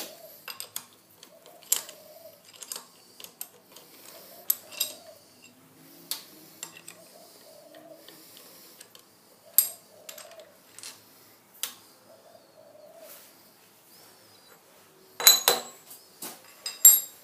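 Hex key and steel socket-head cap screws clicking and clinking against the aluminium soft jaws and steel body of a milling-machine vise as the jaws are screwed on: scattered light taps throughout, with a louder clatter of metal strikes near the end.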